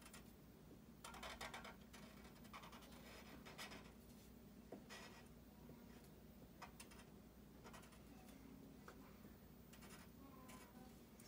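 Black marker drawing on paper in short, irregular scratchy strokes, faint against a low room hum.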